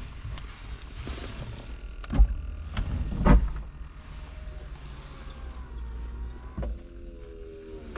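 BMW E46 convertible's electro-hydraulic soft top opening: the hydraulic pump runs with a steady hum, with two loud clunks about two and three seconds in as the top's mechanism moves.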